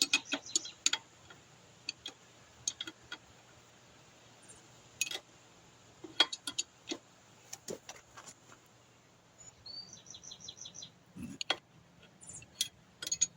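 Scattered metallic clinks and knocks of hand tools, wrenches and sockets, being picked up and set down. A small bird chirps a quick run of short high notes about ten seconds in.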